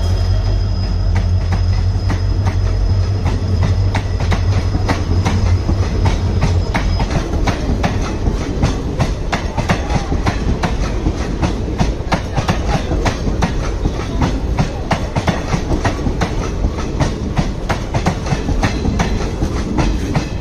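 Intercity express train passing on the track. A deep low rumble for the first several seconds gives way to the wheels' quick, dense clickety-clack over the rail joints.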